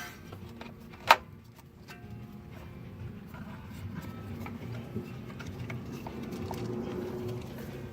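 A single sharp click about a second in, typical of a plastic brake pad wear sensor connector or cover snapping into place, over a low steady background.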